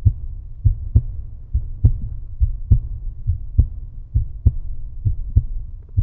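Deep thumps in a steady heartbeat rhythm, lub-dub pairs a little under one per second, about seven pairs in all.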